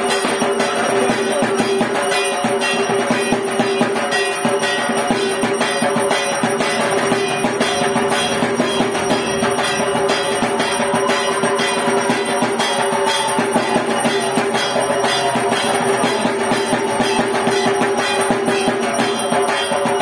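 Music with a steady percussive beat and sustained tones.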